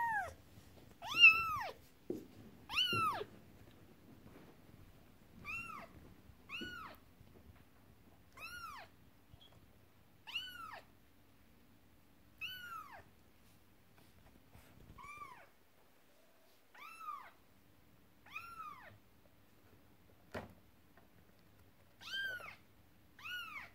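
Young kitten meowing again and again: a dozen or so short, high-pitched calls that rise and fall in pitch, one every second or two. A single knock sounds near the end.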